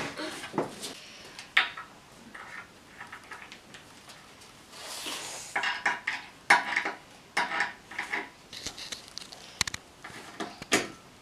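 A hand screwdriver working screws into a flat-pack desk panel, with loose metal screws and fittings clinking. It comes as a string of short clicks and knocks, with a soft rustle about five seconds in and a busier run of clicks just after.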